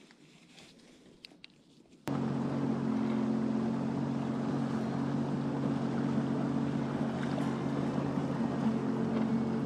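Sea-Doo personal watercraft engine running steadily at low speed, a constant-pitch hum that starts abruptly about two seconds in, after a quiet stretch with a couple of small clicks.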